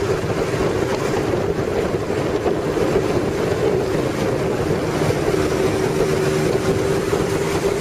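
Honda CBX1000's air-cooled inline-six engine running at steady revs as the bike cruises, an even, unchanging exhaust note. Wind noise on the microphone runs under it.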